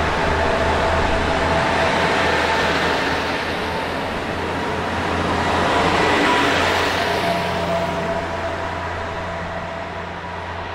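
JR East KiHa 110-series two-car diesel railcar moving along the platform, its diesel engine running over wheel and rail noise. It is loudest as it passes close, about six seconds in, then fades as it draws away.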